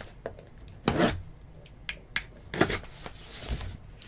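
A 2019 Tier One baseball card box being opened by hand, making a handful of short, irregular rustles and sharp clicks of cardboard and wrapper. The loudest comes about a second in.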